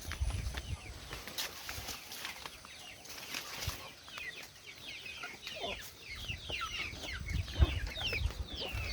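Birds chirping: many short, high, falling chirps that grow denser from about three seconds in, with a few low thumps near the start and again near the end.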